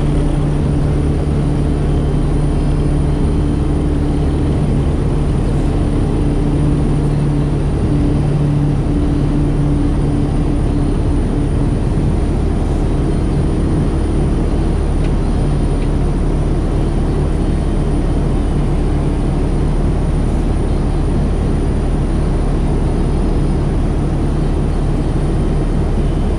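Kodiak 100's Pratt & Whitney PT6A turboprop and propeller at takeoff power, heard inside the cabin, through the takeoff roll and the climb. A steady loud drone, with a low hum that fades back about twelve seconds in.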